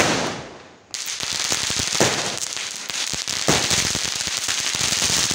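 Firework bursting into crackling sparks. A loud bang fades over the first second, then a dense, continuous crackle of many small pops starts about a second in and keeps going.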